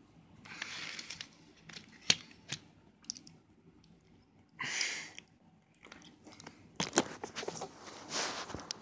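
Plastic wrapping on a CD jewel case crinkling and tearing in three short bursts, with a few sharp clicks from the hard plastic case being handled.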